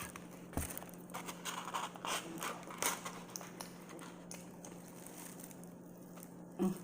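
Person eating: scattered small clicks, crunches and mouth noises, most of them in the first three seconds or so, over a steady low hum.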